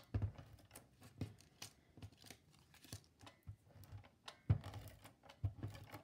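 Handheld tape runner laying adhesive along the tabs of a cardstock piece: irregular clicks and rustling of paper, with a few soft thumps against the table, the loudest about four and a half seconds in.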